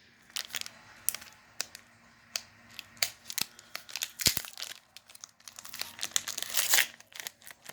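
Foil wrapper of a Pokémon trading card booster pack being torn open and crinkled: a string of sharp crackles and rips, with a dense stretch of crinkling about two-thirds of the way through.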